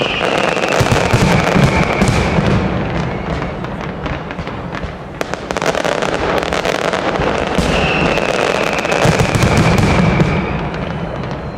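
Fireworks display: dense bangs and crackles of bursting shells with low booms, and twice a long, high, slightly falling whistle.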